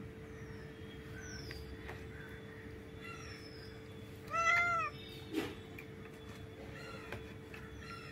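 A domestic cat gives one loud meow about four seconds in, lasting about half a second and rising then falling in pitch, with a short lower sound just after it.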